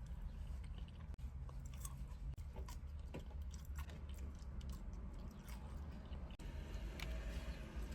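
A person chewing and biting food close to the microphone, with many short, sharp crunches and mouth clicks.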